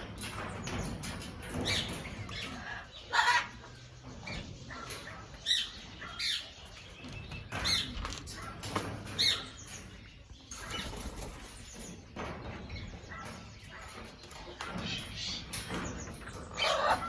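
Amazon parrots moving about and working at their toys: irregular rustling, wing flaps and sharp cracks, with a few short calls.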